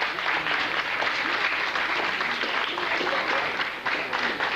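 Congregation applauding, with a few voices calling out among the clapping.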